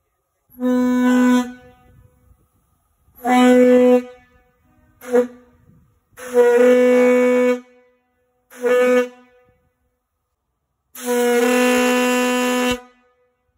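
A single-note steam locomotive whistle blown on compressed air instead of steam, sounding a series of six blasts of one steady pitch. The blasts come long and short by turns, with a short toot about five seconds in and the longest blast near the end.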